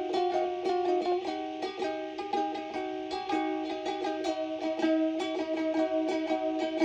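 Music on a plucked string instrument: a quick, busy run of notes, several a second.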